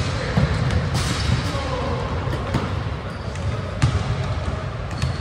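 Indoor soccer play on a hard gym floor: a ball being kicked and bouncing, with several sharp thuds, among faint shouts of players in a large hall.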